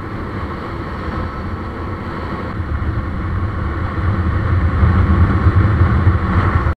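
Motorcycle engine running at road speed with wind rush, heard from on board the bike, growing steadily louder; it cuts off suddenly at the very end.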